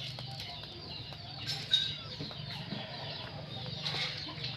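Chickens clucking over a steady low hum, with a sharp knock a little under two seconds in.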